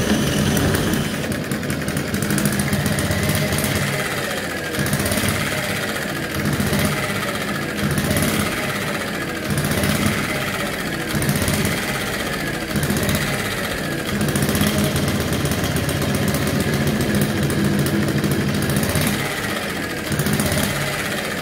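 A miniature single-cylinder gasoline model engine with twin flywheels running steadily and belt-driving a small generator. Its sound swells and eases every second or two.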